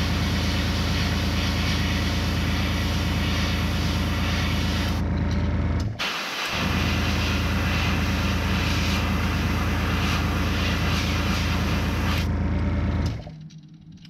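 Airbrush compressor motor running with a steady low hum under the hiss of the airbrush spraying paint. It cuts out briefly about six seconds in, starts again, and shuts off near the end.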